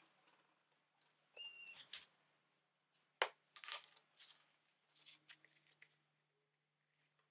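A short high squeak, then a sharp knock about three seconds in as things are set down on a wooden workbench, followed by a few bursts of paper rustling as a sheet is handled and lined up on a paper trimmer.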